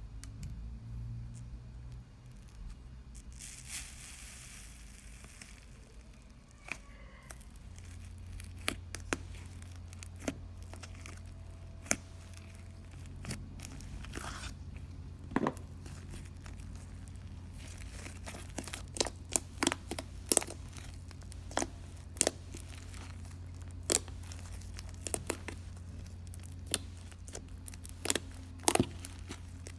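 Iceberg slime's hardened crust being pressed and broken, giving crinkly crackling and sharp snapping pops. The pops are sparse at first and come quickly and often in the second half.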